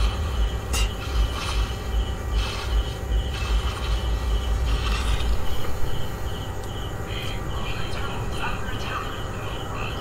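Video game jungle ambience with cricket-like chirps repeating about twice a second. A low, pulsing thump runs under it and stops about six seconds in, with a few sharp clicks of in-game effects.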